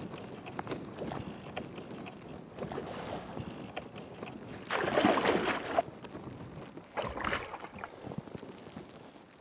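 Strong wind buffeting the microphone over a choppy river, with a louder gust of rushing noise about five seconds in and a shorter one about two seconds later.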